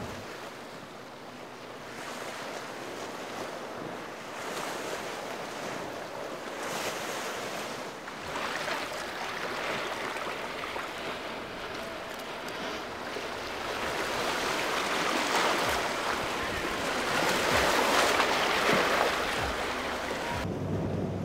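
Waves washing and breaking with wind on the microphone, no engine audible; the surf grows louder in the second half.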